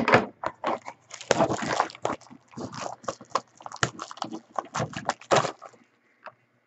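Crinkling and rustling of card packaging being torn and handled as a sealed trading-card pack is opened, in irregular crackles that stop near the end.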